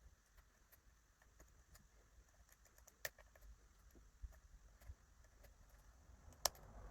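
Faint, scattered metallic clicks of a lock pick and tensioner working the barrel pins of an ASSA 600 pin-tumbler lock, with two sharper clicks, one about three seconds in and one near the end.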